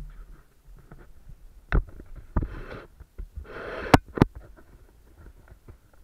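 Handling noise from an action camera carried while walking: irregular knocks and sharp clicks, with two brief rustling hisses in the middle.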